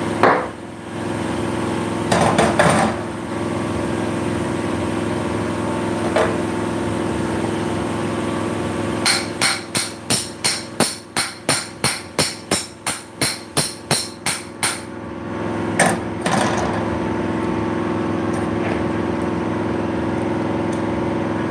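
Steel claw hammer striking a small object in a quick run of about twenty blows, three or four a second, with a few single knocks before and after. A steady hum underneath.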